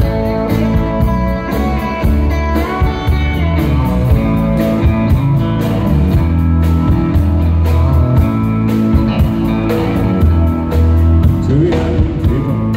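Live country band playing an instrumental intro: drums keeping a steady beat under bass, electric and acoustic guitars and pedal steel guitar.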